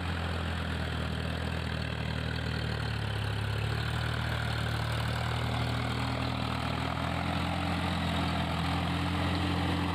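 Indo Farm 3048 tractor's diesel engine running steadily as it pulls an implement through paddy mud, its pitch shifting slightly a few times.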